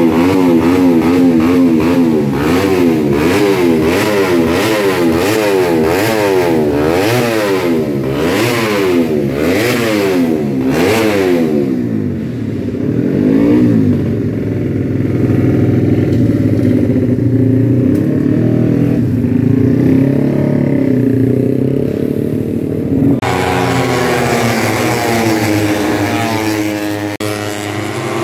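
Tuned Honda race motorcycle engine revved on a paddock stand with quick, repeated throttle blips, the pitch rising and falling over and over. About twelve seconds in it settles to a steadier, lower run. After about 23 seconds this gives way to race motorcycles passing on the circuit.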